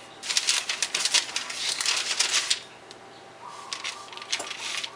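Serrated knife sawing quickly across the floured top of a loaf of bread dough on parchment paper, scoring it: a dense run of scratchy scraping strokes in the first half, and a few more strokes near the end.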